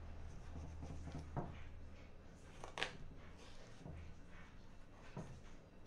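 Knife filleting a piau fish on a wooden cutting board: soft scraping strokes and a few light taps, the sharpest about three seconds in, over a faint steady low hum.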